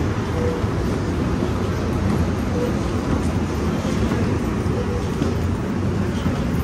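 Steady rumble of an Amtrak train, with a short faint tone repeating about every two seconds.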